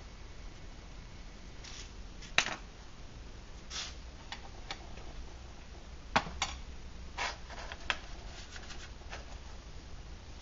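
Metal cookpot and folding metal pot stand being handled: a few sharp clinks and short scrapes as the pot is lifted off the stand and set down and the stand is picked up, over a faint steady hum.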